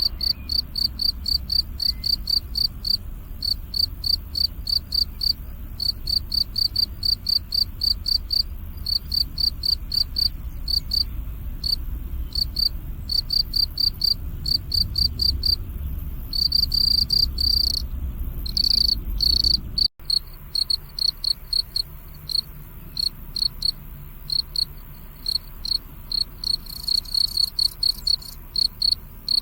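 Crickets chirping in a steady run of short, high chirps, about three a second, now and then drawn out into longer trills. A low rumble sits underneath and stops with a brief break about two-thirds of the way through.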